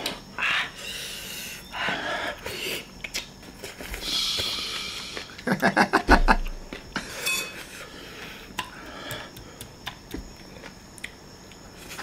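People eating very spicy seafood papaya salad: hard, hissing breaths and sniffs, with spoons and forks clicking on plates. A short burst of laughter comes about halfway through.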